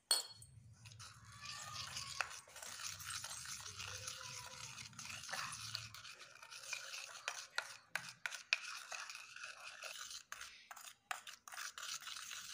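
Plastic spoon stirring thick, lumpy plaster of Paris paste in a plastic bowl: a continuous gritty scraping with scattered clicks of the spoon against the bowl.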